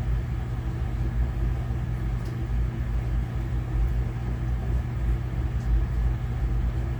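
Steady low background hum from a running machine, unchanged throughout, with a couple of faint ticks.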